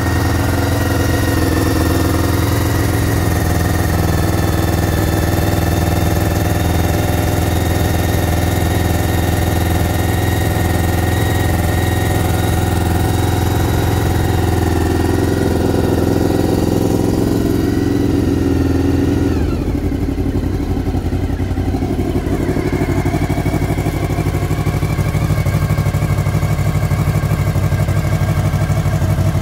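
Honda VFR750's V4 engine idling through a Delkevic aftermarket silencer as it warms up after a cold start. About two-thirds of the way through the note falls and dips for a few seconds, then settles into a steady idle again.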